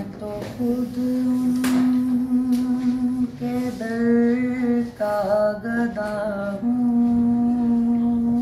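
A young man singing a naat, an Urdu devotional poem in praise of the Prophet, unaccompanied, in long held notes with wavering ornaments.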